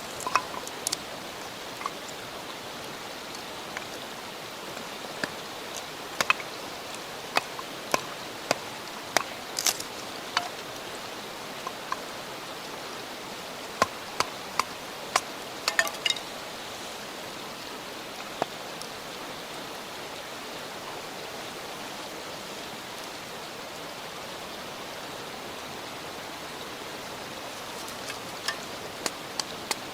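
Wood campfire crackling: sharp pops and snaps over a steady hiss, the pops frequent in the first half and few later.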